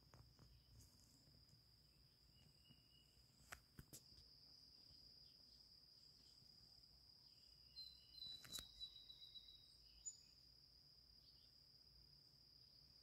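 Faint, steady, high-pitched insect trill, with a short bird call of rapid notes about eight seconds in and a few faint clicks.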